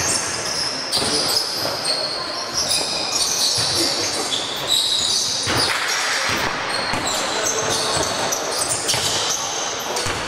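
Basketball game on an indoor court: the ball bouncing as it is dribbled, sneakers squeaking sharply and often on the floor, and players' voices.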